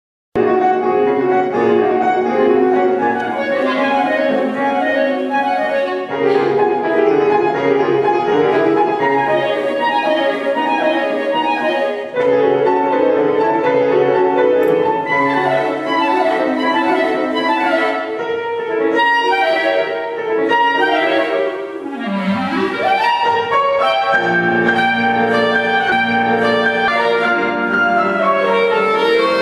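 Clarinet and grand piano playing classical music together, starting abruptly after a brief gap. A little past the middle the clarinet makes a fast upward run before the duet goes on.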